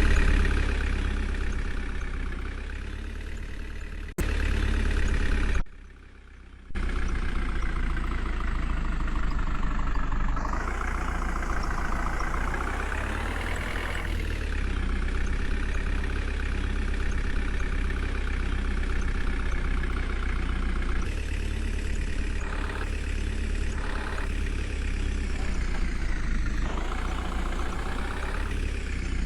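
Heavy diesel engine of a backhoe loader running steadily, revving up and back down around ten to fourteen seconds in. The sound cuts abruptly about four seconds in and drops out for about a second around six seconds.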